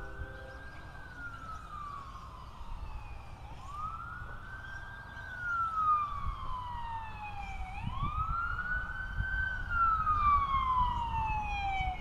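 Ambulance siren on a wail setting. Each cycle rises quickly, then slides slowly down over about three seconds. It repeats about three times and gets louder from about halfway through as the ambulance approaches.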